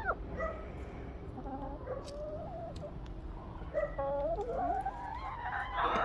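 A chicken making several short calls with pauses between them; the last one, near the end, is the loudest.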